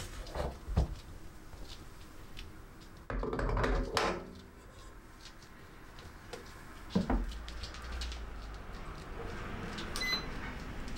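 Twinbird bread maker being loaded and started: the bread pan is handled and set into the machine with clicks, a second-long scraping rustle about three seconds in and a knock about seven seconds in. Near the end the control panel gives one short high beep as the start button is pressed, starting the automatic course.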